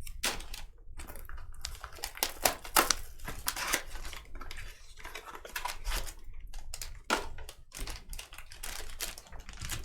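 Trading cards and their packaging being handled: irregular light clicks and crinkling of wrappers and sleeves.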